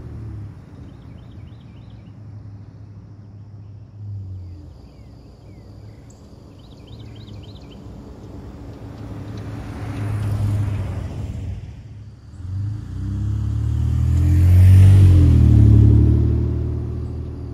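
Nissan Frontier pickup's 3.8-litre V6 engine and tyres on a dirt road as the truck drives by. The sound swells about ten seconds in and is loudest about fifteen seconds in as the truck passes close, with the engine pitch rising. A few short bird chirps come about a second in and about seven seconds in.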